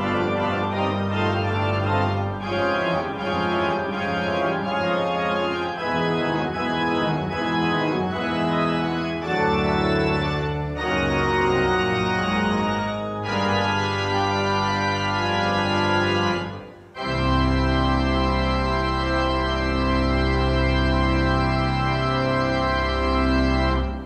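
Organ playing slow sustained chords. After a brief break about seventeen seconds in, one long chord with deep pedal bass is held, then stops near the end.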